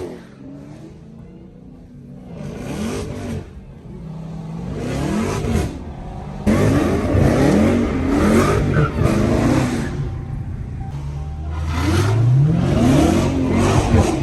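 Dodge Hellcat supercharged V8 revving again and again, its pitch rising and falling. It is quieter at first, louder from about six seconds in, and ends in a longer rising pull.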